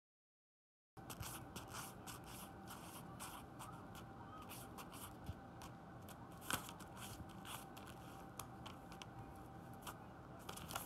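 Sheets of paper rustling and crinkling in quick, irregular crackles as a cat bites and paws at them, starting about a second in.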